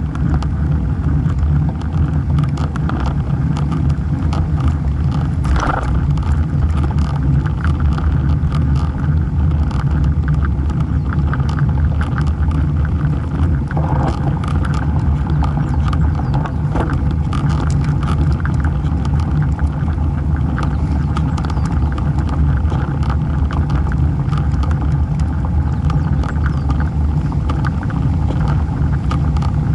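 Steady low rumble of rushing air on a microphone mounted by a road bike's front wheel, mixed with the tyre running on asphalt, with scattered light ticks.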